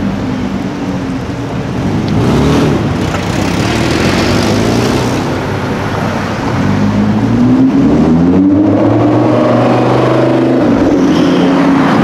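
Street traffic at first. From about halfway in, a Mercedes-AMG GT roadster's twin-turbo V8 accelerates past: its engine note climbs steadily for a few seconds, then holds loud.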